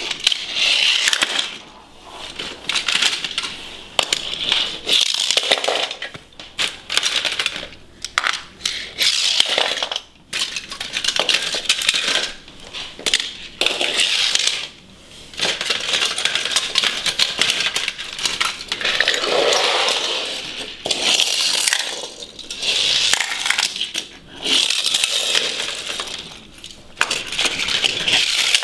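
Die-cast toy cars rolling and clattering across a hard floor: a rattling hiss in repeated bursts of one to two seconds, broken by sharp clicks and knocks.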